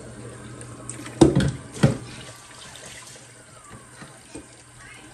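Kitchen faucet running into a stainless-steel sink while rice is rinsed in a steel pot, with two sharp knocks a little over a second in, about half a second apart.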